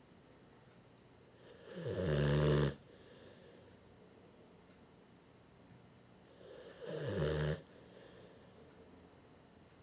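Bullmastiff puppy snoring: two loud snores about five seconds apart, each about a second long, falling in pitch into a low rattle and then cutting off abruptly.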